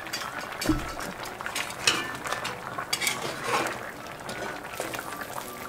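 Metal tongs stirring through a simmering goat and potato stew in a cast-iron Dutch oven, scraping and clinking against the pot now and then.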